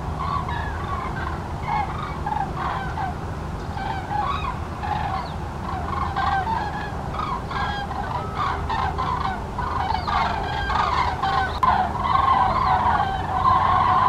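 Flock of common cranes (Grus grus) calling: many overlapping loud calls, growing denser and louder over the last few seconds.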